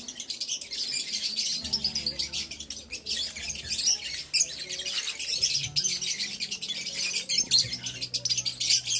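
A flock of caged lovebirds chattering: a dense, unbroken stream of rapid high chirps and tweets from many birds at once.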